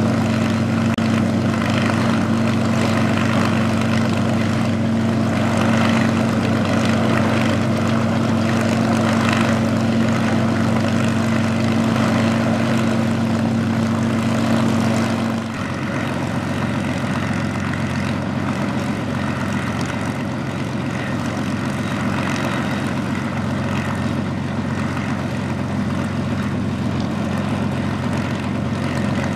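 Bf 109 E-3's Daimler-Benz DB 601 inverted V12 engine running steadily on a ground run. About halfway through it drops to a lower, quieter note and keeps running there.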